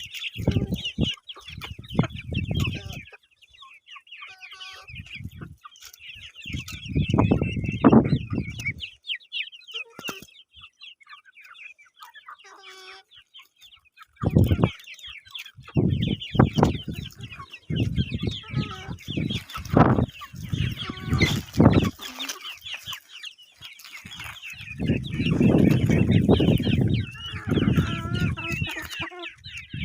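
A flock of chickens clucking and calling continuously, many overlapping short calls, broken several times by bursts of low rumbling noise.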